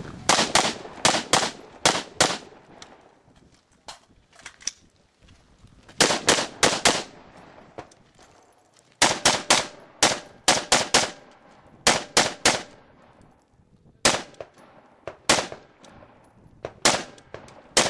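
AR-15-style carbine fired semi-automatically in quick strings: groups of two to ten sharp shots, up to about five a second, with pauses of one to three seconds between groups as the shooter moves between positions.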